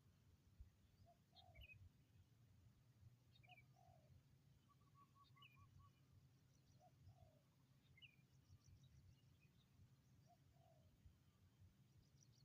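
Spotted dove cooing faintly: four short two-part coos a few seconds apart. Small birds give short high chirps in between.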